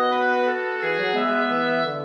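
Background instrumental music: held notes from wind instruments in several parts, in a classical style.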